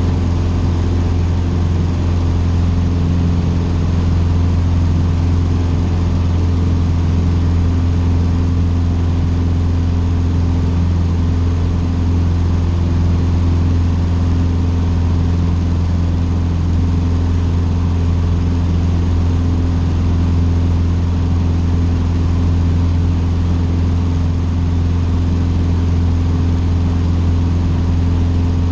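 Cessna 150's four-cylinder Continental O-200 engine and propeller running at a constant power setting: a loud, steady, low drone that does not change.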